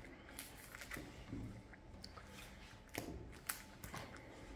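Trading cards being handled and slid into the clear plastic pockets of a collector's binder, giving soft scattered rustles and small plastic clicks.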